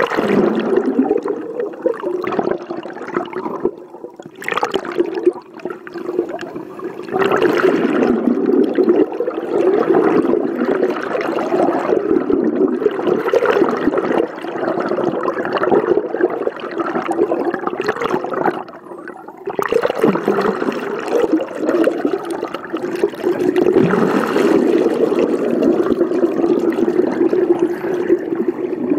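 Muffled rushing and bubbling of water around a camera held underwater, continuous with two brief dips in level.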